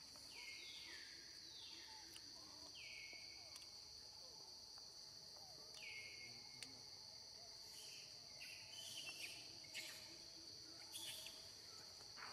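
Faint, steady, high-pitched insect drone. A few short falling calls come near the start and again about six seconds in, and brief scratchy noises follow in the second half.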